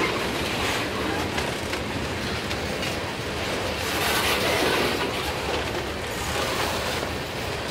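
Freight train tank cars rolling past close by: a steady rumble of steel wheels on the rails, with repeated clicks as the wheels cross rail joints.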